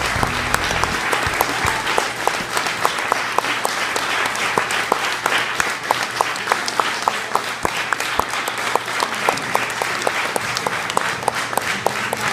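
Theatre audience applauding steadily at a curtain call, with sharp nearby claps standing out from the crowd's applause.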